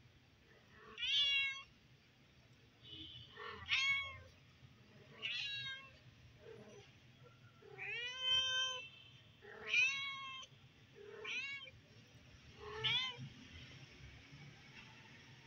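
A cat meowing repeatedly: about seven short, high-pitched meows spaced a second or two apart.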